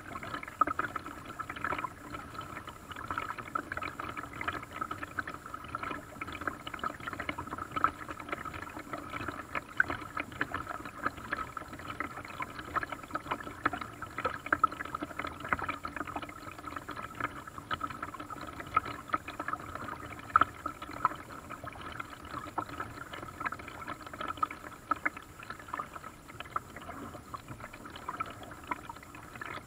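Lake water lapping and splashing against the hull of a small paddle boat, in many small irregular splashes.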